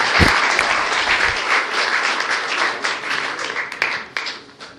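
Audience applause at the end of a live song. It is dense at first, then thins out to scattered claps near the end.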